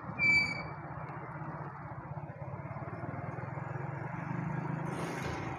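Steady low engine rumble of a vehicle moving slowly through street traffic. A short high-pitched beep comes just after the start, and a brief hiss near the end.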